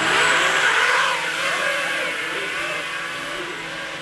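Small quadcopter drone taking off: a loud burst of propeller noise as the motors spin up, then a whine that wavers in pitch and slowly fades as it climbs away.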